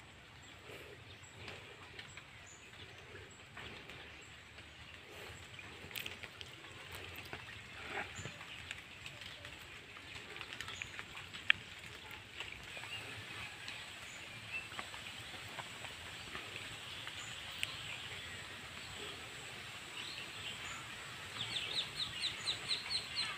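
Outdoor bird calls: scattered short high calls, then a quick run of about eight repeated high notes near the end.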